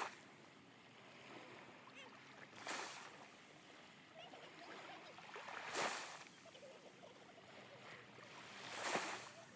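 Small Red Sea waves washing onto the shore, a wave swelling and falling back about every three seconds.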